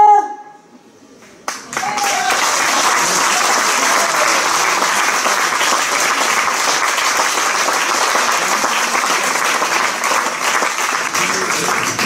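Audience applauding, breaking out suddenly about a second and a half in and continuing as a steady, dense clapping.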